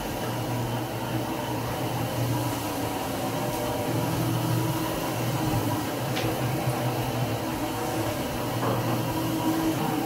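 Electric single-disc floor polisher running steadily, its motor humming as the pad scrubs and washes a pine plank floor with water.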